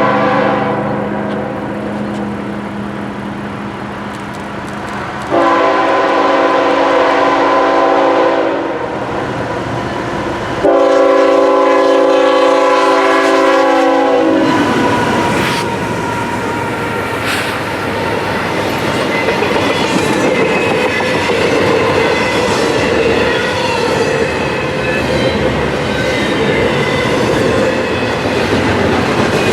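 Locomotive air horn sounding long blasts: one trails off just after the start, then two more of about three seconds each. After the last blast the train passes close by, its wheels clacking over the rail joints.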